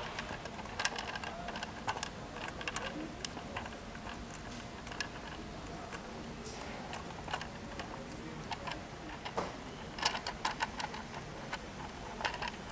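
Irregular light clicks and taps of hands handling a control cable and a holster box while the cable is pushed through the box's cable gland.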